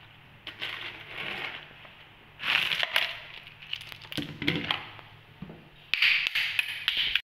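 Ice cubes dropped by the handful onto whole raw fish in a plastic basin, clattering and crackling as they land and slide among the wet fish. The loudest drops come about two and a half seconds in and again about six seconds in.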